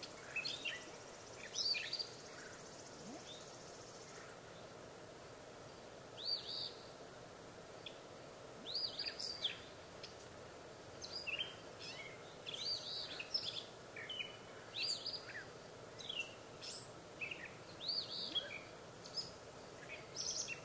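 Songbirds singing: short phrases of high, quickly falling chirps every second or two, over a steady faint background noise.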